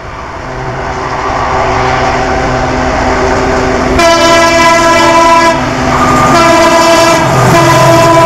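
A WDP-4D diesel locomotive approaching at speed, its engine and the train's running noise growing louder over the first couple of seconds. From about four seconds in, its multi-tone air horn sounds three blasts, the last still sounding at the end.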